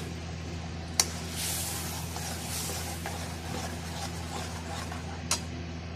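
Wooden spatula stirring and scraping thick masala paste as it bubbles in a metal kadai, over a steady low hum. Two sharp knocks, about a second in and near the end.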